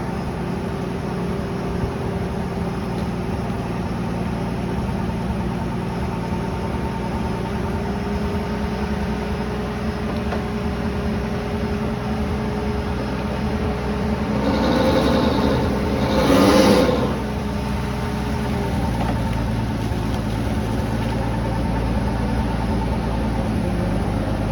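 An engine running steadily, with a louder, rougher swell lasting a couple of seconds about fifteen seconds in.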